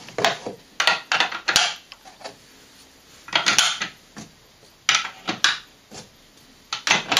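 Polished cherry-wood toy wheels clacking and knocking against the wooden parts tray and the chassis as they are picked up and slid onto wooden axles. The sound is an irregular run of sharp wooden clicks, with a couple of short scraping slides.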